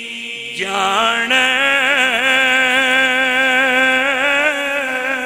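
A solo man's voice singing a long, drawn-out note with a gentle waver, in a Punjabi devotional refrain. There is a brief break for breath at the start; the note comes back about half a second in and is held.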